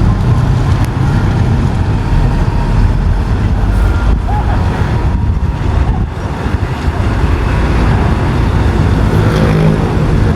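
Roadside traffic: vehicles passing with a steady, loud low rumble of engines and tyres, a heavier engine note coming in near the end.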